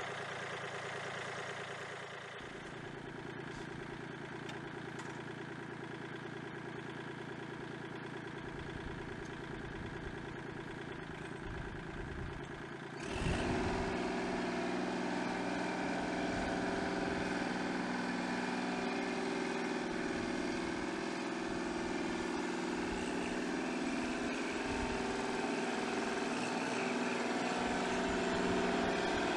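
Kubota compact tractor's diesel engine running steadily at idle, then louder and closer after a sudden jump about halfway through as the tractor is driven.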